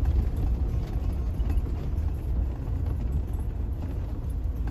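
Vehicle heard from inside its cabin while driving on beach sand: a steady low rumble of engine and tyres.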